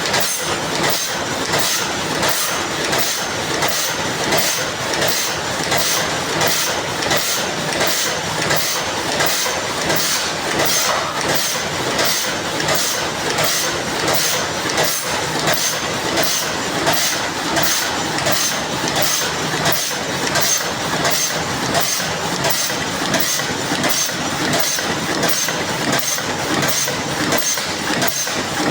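Paper cup making machine running steadily, its mechanism clattering in an even, repeating rhythm.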